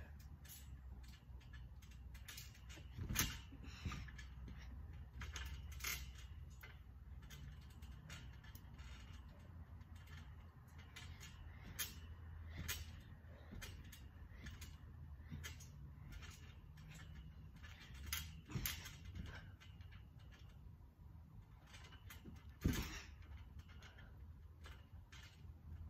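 Trampoline springs creaking and the mat knocking as a person jumps and lands on it on hands and feet, in irregular knocks, with louder landings about three seconds in and near the end.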